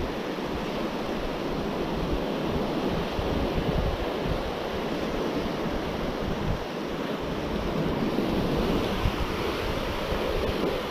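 Small surf waves washing up a sandy shore in a steady rush, with wind buffeting the microphone.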